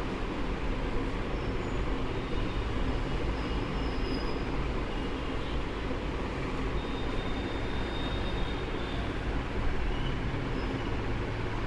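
A steady rumbling background noise, with a few faint, short high-pitched tones over it.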